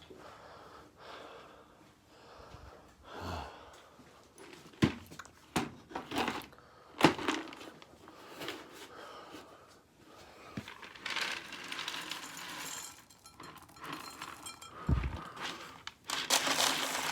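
Dry cat food being poured into bowls. A few sharp knocks and clicks, then longer stretches of rustling and rattling kibble near the end.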